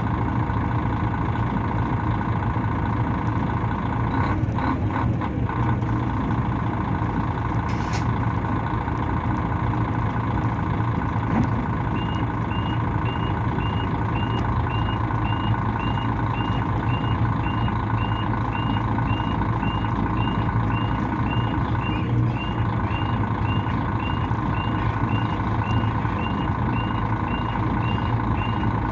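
Mercedes-Benz O500-RS coach's 354 hp rear-mounted diesel engine running steadily under way, heard from inside the bus. From about twelve seconds in, a short high beep repeats about every two-thirds of a second.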